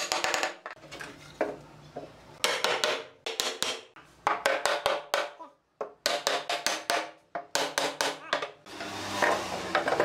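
Quick runs of light hammer taps on wood, several strikes a second in four short bursts, as glued wooden joints are knocked together.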